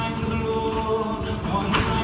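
Large mixed youth choir singing sustained chords in a choral arrangement of a pop song.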